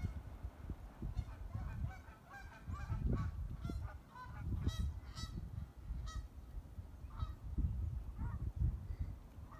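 Rottweilers vocalizing: a rapid string of short, high-pitched calls, thickest in the middle, over a low rumbling noise.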